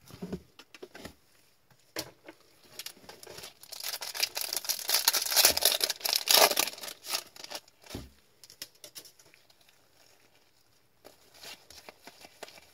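A foil card pack being torn open and crinkled by gloved hands, with a dense crackling tear loudest from about four to seven seconds in. A single thump follows about eight seconds in, then the light flick and slide of trading cards being handled near the end.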